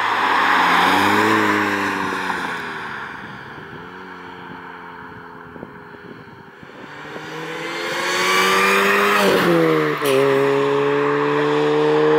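2004 Mini Cooper S (R53), a supercharged four-cylinder with a stainless steel exhaust, driving past under acceleration: the engine note swells and fades as the car passes, then after a quieter spell it revs up again, drops in pitch briefly at an upshift about ten seconds in, and holds a strong note near the end.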